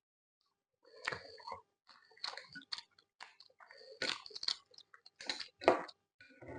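A person chewing with the mouth close to the microphone, eating akpu with fish: a run of short, wet smacks and clicks in irregular groups, starting about a second in.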